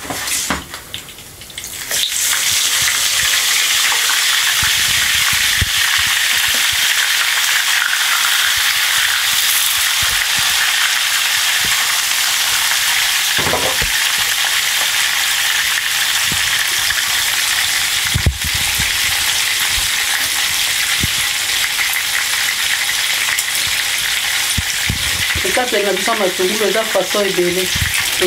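Food frying in hot oil in a frying pan, browning: a steady sizzle that starts about two seconds in, with a couple of light knocks.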